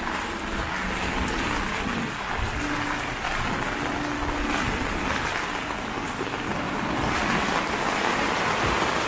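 Steady rain falling, a dense even hiss that grows a little louder about seven seconds in.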